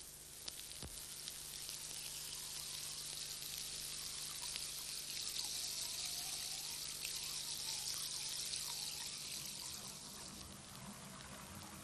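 A thin stream of water trickling and splashing into water, a steady hiss that swells from about a second in and eases off near the end, with a couple of faint clicks near the start.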